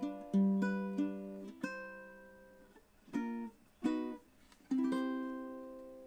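Low-G tenor ukulele (a Gilman Hamakua model) played fingerstyle: a few plucked notes, two short damped chords around three and four seconds in, then a last chord left to ring and fade away.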